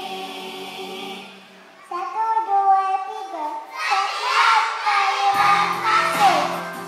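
Group of young children singing a song over a backing track. A held note fades out, the song starts again about two seconds in with many voices, and a bass line joins a few seconds later.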